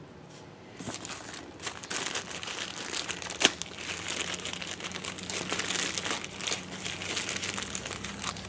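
Small plastic bag crinkling in the hands as it is handled and opened, starting about a second in and going on with many small sharp crackles.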